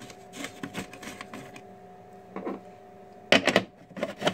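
A hand tool clicking and clattering on a bolt as a carbon fibre part is bolted down into its fixture, with light scattered clicks at first and a loud burst of clatter about three seconds in. A steady machine hum runs underneath.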